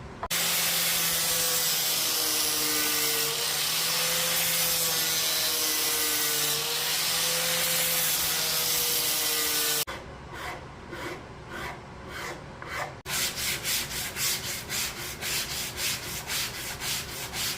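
A power tool runs steadily on a wooden bass body for about ten seconds with a wavering hum, then stops abruptly. It is followed by rhythmic hand-shaping strokes rubbing across the wood, about three a second, which grow louder for the last few seconds as the body's contours are carved.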